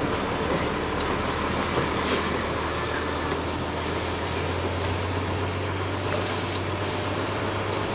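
Diesel engine of a Komatsu rigid dump truck running with a steady low drone over a constant noisy hiss.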